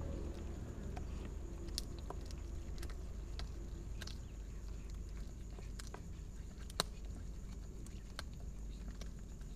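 Two kittens eating pieces of fish: irregular soft clicks of chewing and licking, with one sharper click about seven seconds in, over a low steady rumble.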